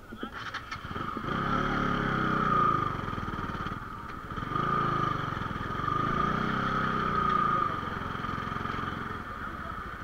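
Motorcycle engine revved up and let back down about three times, with a steady engine hum underneath.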